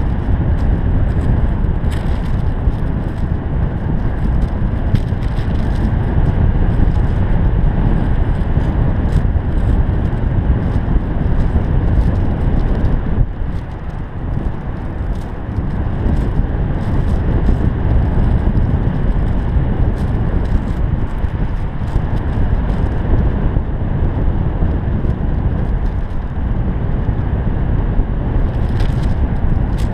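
Airflow of paraglider flight buffeting the camera microphone: loud, steady wind noise with scattered short crackles, easing briefly about halfway through.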